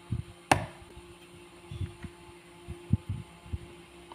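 Handling noises from assembling a small enclosure: scattered low knocks and taps, with one sharp click about half a second in as pliers work a nut tight, over a steady faint hum.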